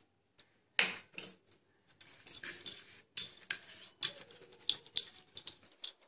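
Hands rubbing turmeric and salt into raw catla fish pieces in a steel bowl: irregular clinks and scrapes of metal against the bowl.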